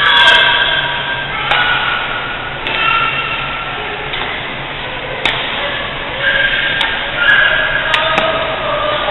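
Badminton rally on an indoor court: a series of sharp racket hits on the shuttlecock at irregular intervals, with sneakers squeaking on the wooden gym floor.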